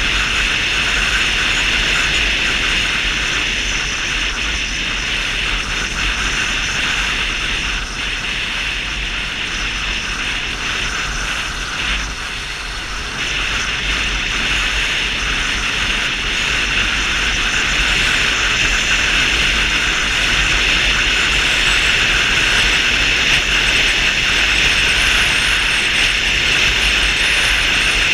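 Vespa 250 GTS scooter cruising at steady speed: a constant rush of wind and road noise over the on-board camera microphone, with the scooter's single-cylinder engine running beneath it. The noise eases briefly about halfway through, then returns.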